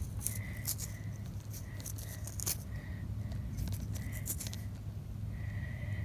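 Fingers rubbing and scraping damp soil off a small dug metal button, giving scattered light crackles and scrapes. Under it runs a steady low hum, with faint short high beeps repeating irregularly.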